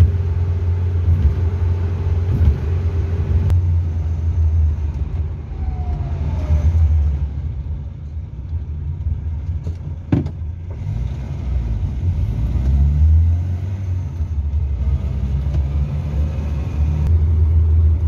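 Hillman Super Minx four-cylinder engine and road noise heard from inside the moving car with the windows down: a steady low rumble that eases off as the car slows for a roundabout about halfway through, then builds again as it pulls away. One sharp click about ten seconds in.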